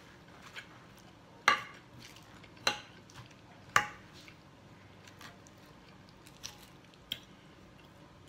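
A metal fork clicking against a plate as it spears salad: three sharp clinks within the first four seconds, then a few fainter taps.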